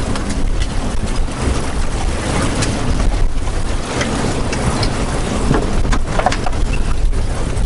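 Wind buffeting the microphone on a small fishing boat, with water washing against the hull and a few scattered knocks.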